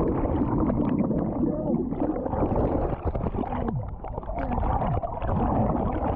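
Muffled underwater churning and gurgling bubbles, heard through a camera plunged under the sea surface.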